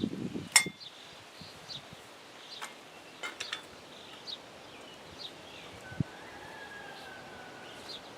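A sharp metallic clink that rings briefly, then a few lighter clicks and a single dull knock, from target-stand hardware being handled. Faint bird chirps repeat in the background.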